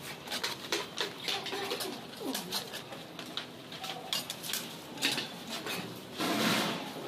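Steel serving spoons and ladles clinking and scraping against steel pots as food is dished out, with many short sharp clicks and a louder noisy patch about six seconds in.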